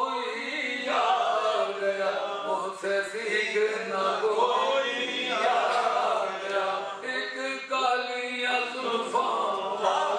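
A man's voice chanting a melodic religious recitation, with long drawn-out held notes in phrases of one to two seconds.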